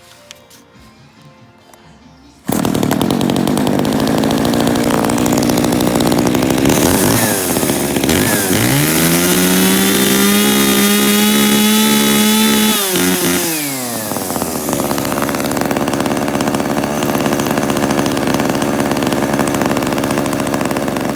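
Kyoritsu two-stroke chainsaw running after its oil pump was replaced. It comes in suddenly a few seconds in, revs up to full throttle and holds a steady high pitch for about four seconds in the middle, then drops back to a lower speed.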